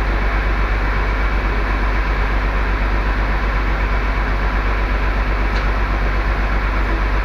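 A bus's diesel engine idling steadily, an even low rumble.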